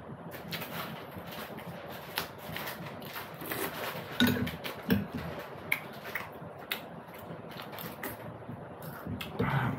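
A person eating jeri and puri close to the microphone: irregular chewing and mouth clicks.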